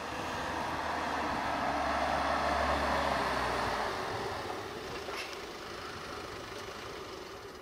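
Mercedes GLB 220d's two-litre four-cylinder diesel and tyres as the SUV drives past. It makes a low rumble and road noise that swell to a peak two to three seconds in, then fade away.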